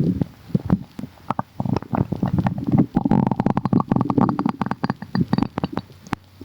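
Human stomach gurgling and rumbling, with many bubbly pops of gas moving through the gut. About three seconds in, a squeaky gurgle rises in pitch for a couple of seconds.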